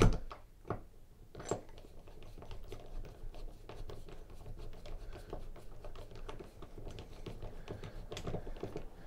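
Screwdriver turning a screw through a chrome toilet paper holder bracket into a wall anchor: a run of small clicks and scratches as the tip works in the screw head, with a sharper click right at the beginning and a few more in the first two seconds.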